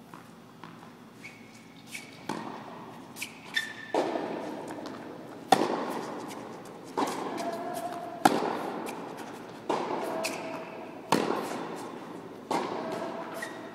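Tennis rally on an indoor court: sharp pops of racket strings hitting the ball, roughly every second and a half, alternating louder and softer as the near and far player hit, echoing in the hall.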